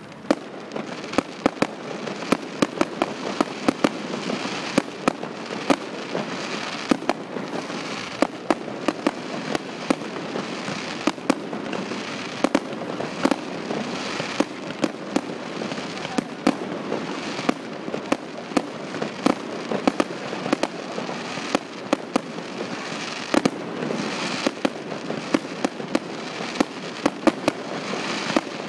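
Fireworks going off continuously: spark fountains and small aerial bursts make a dense crackle of sharp pops and bangs, several a second and irregular, over a steady noisy rush.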